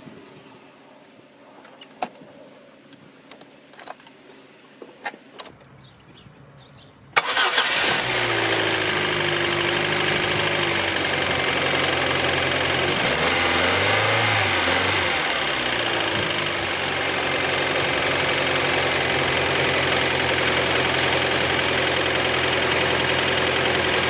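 Opel Astra F's 1.4-litre four-cylinder petrol engine cranked and started after a few faint clicks. It catches about seven seconds in and settles into a steady idle, with the revs briefly rising and falling partway through. It is running on freshly fitted spark plugs.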